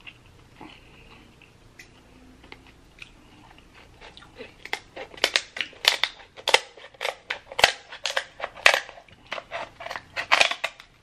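Kitchen scissors cutting through the shell of a cooked king crab leg: a quick run of sharp cracks and crunches that starts about four seconds in and keeps going.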